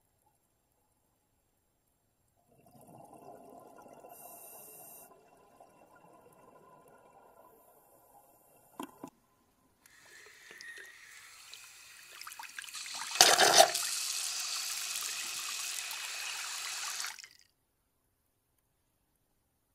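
Rushing, gurgling water noise in two stretches with a short silence between them. The second stretch is louder, with a sharp surge about thirteen seconds in, and cuts off suddenly.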